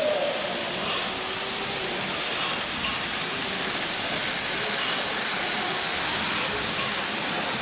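OO gauge model trains running along the layout's track: a steady rolling hum of small motors and wheels on rails, with the faint hubbub of the room behind.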